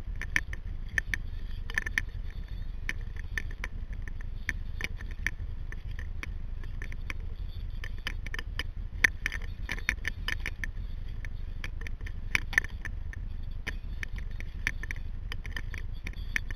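Water around a paddled sea kayak: many irregular small splashes and drip ticks over a steady low rumble, with a few sharper ticks standing out.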